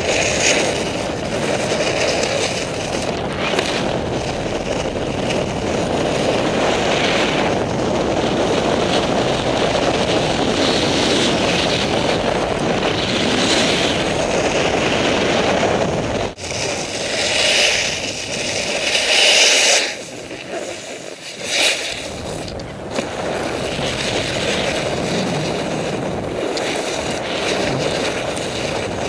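Snowboard running over snow: a continuous scraping rush of the board's base and edges on the snow, with hissing surges as the board carves turns, and wind buffeting the microphone. It drops out sharply for a moment and then goes briefly quieter about two-thirds of the way through.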